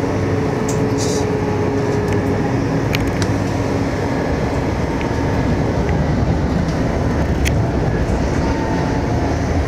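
Inside an AnsaldoBreda Sirio tram in motion: a steady rumble of wheels and running gear on the rails, with a few sharp clicks.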